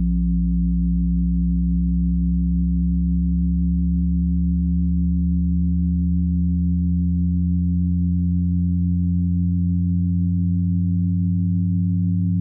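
Steady electronic drone of several low pure tones layered together. The deepest tone fades out around the middle while a slightly higher one swells.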